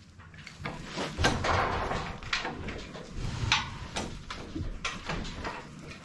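A boat trailer being pulled out on its wheels across a concrete floor, its metal frame rattling and clanking with irregular knocks.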